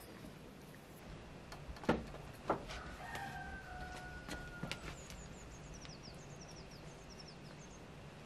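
Quiet open-air ambience with two sharp knocks about two seconds in, a distant drawn-out call from about three seconds, then a small bird's run of quick, high, descending chirps.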